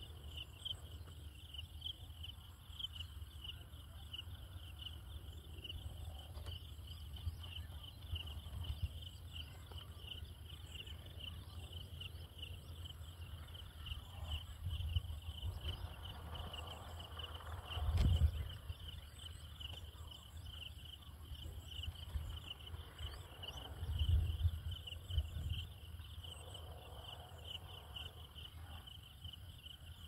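Insects chirring steadily in a high, rapidly pulsing trill, over a low rumble that swells now and then, with one sharp knock about two-thirds of the way through.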